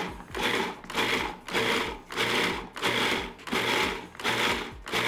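Food processor pulsed in short on-off bursts, a little under two a second, its motor whirring and blade chopping a bowl of bell pepper, cucumber, onion and garlic down to a fine, chunky mix.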